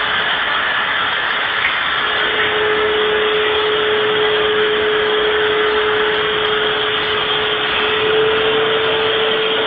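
Vacuum cleaner running steadily: a loud, even hiss of air with one constant whine.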